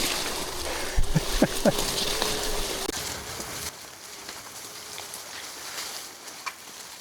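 Bicycle rolling along a rough forest back trail, its tyres crackling and rustling over the forest floor, with a few knocks about a second in. The noise eases off after about three and a half seconds.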